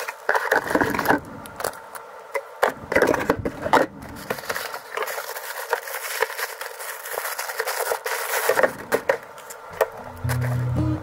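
Bubble wrap and plastic packaging crinkling and rustling as items are unwrapped, with cardboard box flaps handled and small clicks and knocks on a wooden table. Acoustic guitar background music starts near the end.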